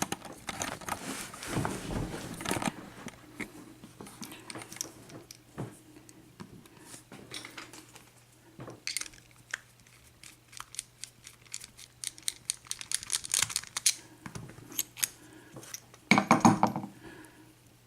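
Small metal clicks and clinks as a picked-open padlock and small metal tools are handled: a scraping rattle in the first few seconds, scattered light clicks through the middle, and a louder rattle near the end.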